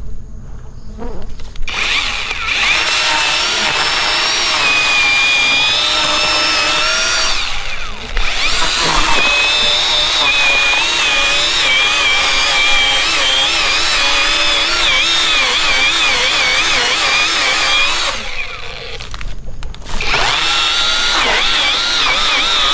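Handheld power tool running with a high whine whose pitch wavers as it cuts into a dead coconut stump. It runs in three stretches, dropping out briefly after about seven seconds and for about two seconds some eighteen seconds in.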